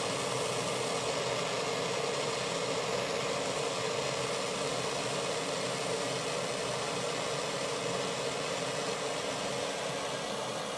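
Handheld gas torch burning with a steady hiss of flame, heating a snowmobile ski-loop rivet to loosen it for removal.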